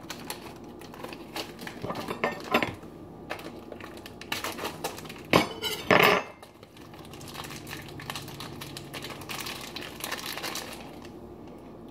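Light clinks and taps of food and dishes being handled on a metal serving tray, mixed with the crinkle of a plastic bag of pepperoni being handled. There are a few louder clatters about halfway through.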